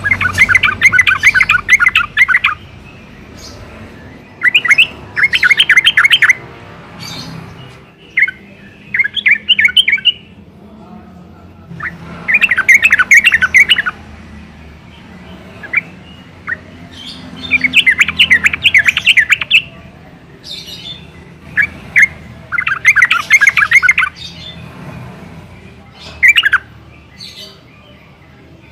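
Yellow-vented bulbul (trucukan) singing: repeated bursts of rapid, bubbly chattering notes, each about two seconds long, coming every few seconds.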